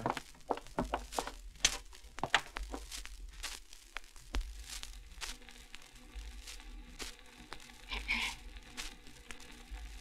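Surface crackle and irregular pops of a home-recorded disc playing on a recording machine, over a faint steady hum.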